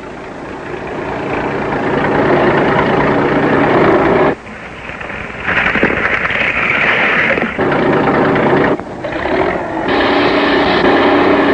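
Engines of heavy construction machinery running loud, the sound changing abruptly several times as one machine gives way to another.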